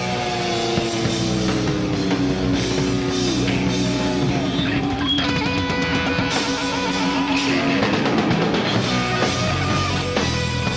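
Live rock band playing: drum kit, bass and electric guitars. A long lead note slides down in pitch and is then held with vibrato for several seconds.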